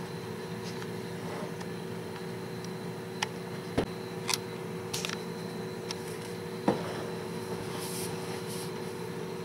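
A steady hum with a handful of short clicks and knocks about three to seven seconds in.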